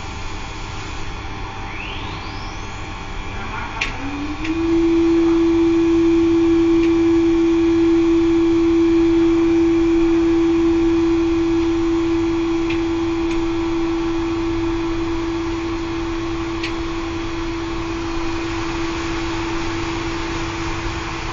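Circulation pump on a Laddomat 21 wood-boiler charging unit, with a steady hum throughout. About four seconds in, a loud single tone starts, rising briefly in pitch before it settles and holds steady. A few faint ticks come around the same time and later.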